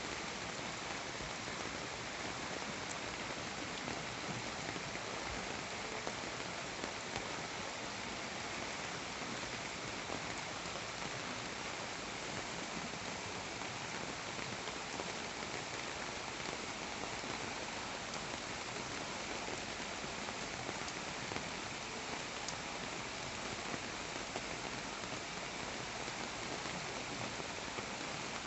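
Steady rain falling: an even hiss with a few separate drops ticking through it.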